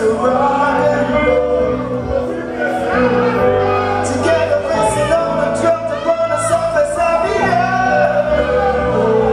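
Men singing live into microphones over loud amplified music with a steady, repeating bass line.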